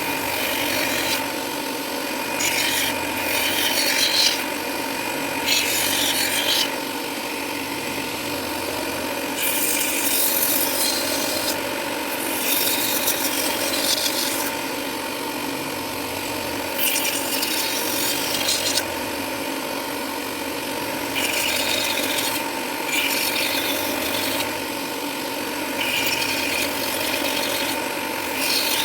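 Grinding down an airsoft pistol grip to rough shape: a steady hum runs underneath, and about ten hissing, scraping passes of one to two seconds each come as the abrasive is worked against the grip.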